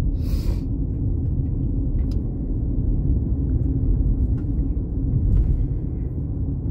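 Steady low rumble of a car being driven, with a brief hiss at the start.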